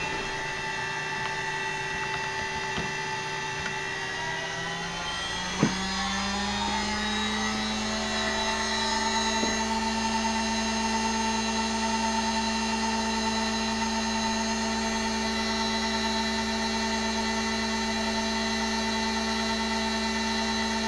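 Huanyang water-cooled CNC spindle, run from a VFD, whining as it speeds up from 10,000 to 15,000 RPM. Several tones glide upward together about four to six seconds in, with one sharp click, then hold steady at the higher pitch over a steady low hum.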